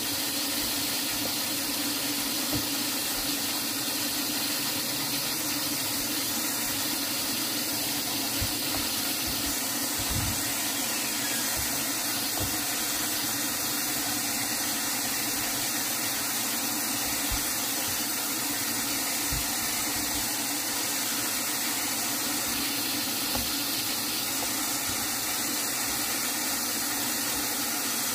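Tap water running steadily into a plastic basin of amaranth greens, with occasional soft splashes and knocks as a hand swishes and turns the leaves.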